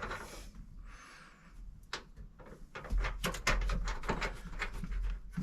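A run of light clicks and knocks from seat belt hardware being handled and fitted to its anchor point, sparse at first and thickening in the second half.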